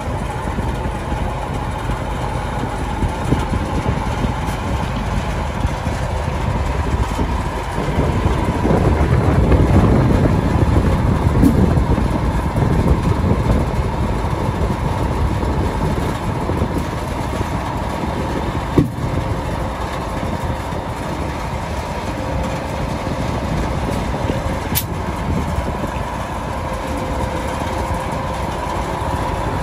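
Heavy diesel tractor engine running steadily, swelling louder for a few seconds around ten seconds in, with one sharp knock partway through.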